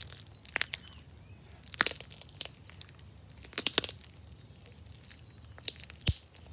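Sticky homemade glue-and-activator slime squeezed and kneaded by hand close to the microphone, making irregular wet clicks and pops.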